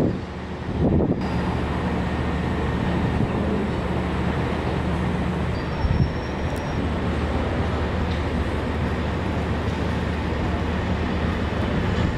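A large engine running steadily, a low even hum, with a single thump about six seconds in.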